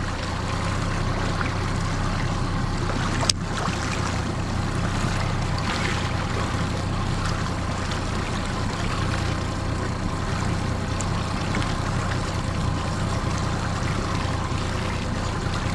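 Outboard motor of a small aluminium tiller boat running steadily at slow trolling speed. A single sharp click about three seconds in.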